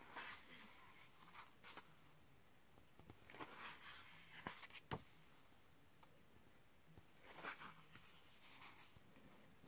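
Faint rustling and swishing of paper as pages of a softcover colouring book are turned by hand, several times, with two sharp clicks near the middle.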